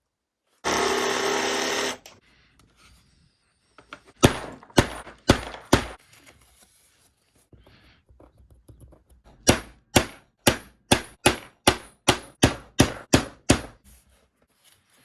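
A small power tool runs for about a second and a half. Then come sharp hammer strikes in leatherwork: four at first, then a steady run of about ten, roughly two a second.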